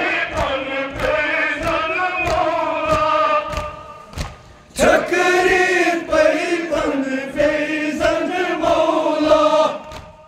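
A crowd of men chanting a Kashmiri noha together, keeping time with their hands striking their chests in a steady beat about three times a second. The chanting drops off briefly about four seconds in and starts again on a new phrase.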